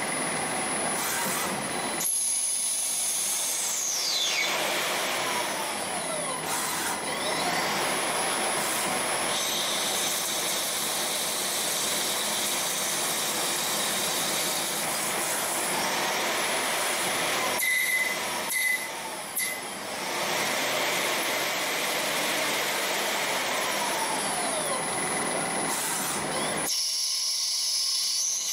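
CNC lathe machining brass bar stock under flood coolant: steady machine noise with coolant spray, and a few falling whines. The sound changes abruptly a few times.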